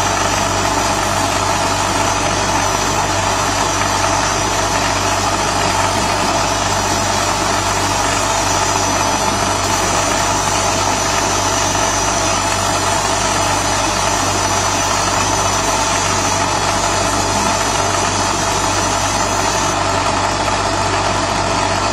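A 50 W CO2 RF laser marking machine running, giving a steady mechanical hum from its fans and drives. A high, thin whine over the hum stops near the end.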